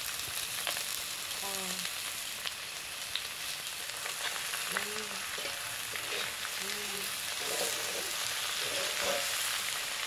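Chopped banana shoot, chicken and potato sizzling in a hot wok, with a metal spatula stirring and scraping against the pan in scattered clicks.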